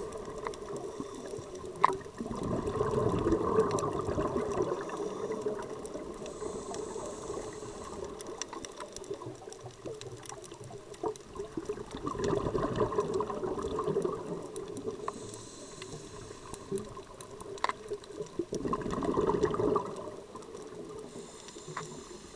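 Scuba regulator breathing underwater: a hiss on each inhalation and a gurgling rush of exhaust bubbles on each exhalation, with three bubbling surges a few seconds apart. Scattered sharp clicks run throughout.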